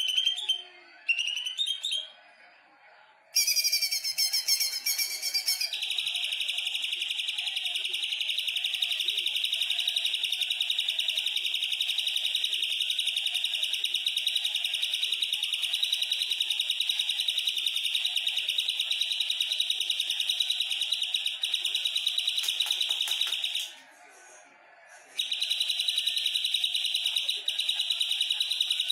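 Cucak ijo (green leafbird) singing: a few short high phrases, then one very long, rapid, high trill held for about twenty seconds without a break. It stops for a moment and starts again near the end.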